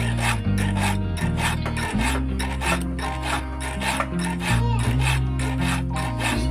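Hand file scraping across a chainsaw chain's cutters in repeated short strokes, over background music.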